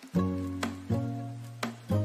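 Background music: pitched notes over a sustained bass that changes about once a second, with light percussion.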